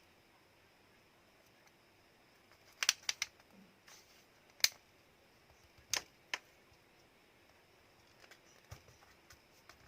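Sharp plastic clicks and snaps from a Samsung Galaxy A02s being taken apart by hand: a quick run of three about three seconds in, single louder clicks a second and a half and three seconds later, then a few faint ticks near the end.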